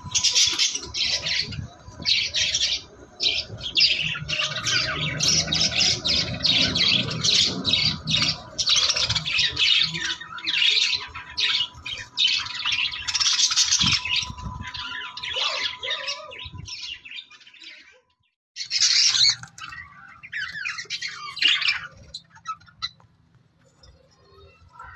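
A flock of budgerigars chattering and squawking in rapid, overlapping high-pitched calls. The calls stop abruptly about two-thirds of the way in, come back in a shorter burst, then fade near the end.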